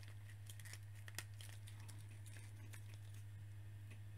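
Faint clicks and light rustles of a plastic action figure being handled and its joints posed, with one sharper click about a second in, over a steady low hum.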